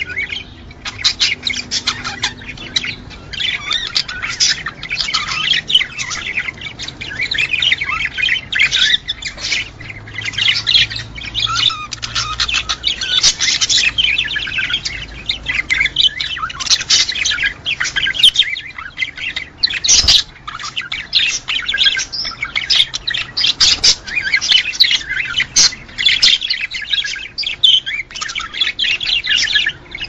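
A flock of budgerigars chattering and warbling: a dense, unbroken run of quick chirps and squawks. One sharp click comes about two-thirds of the way through.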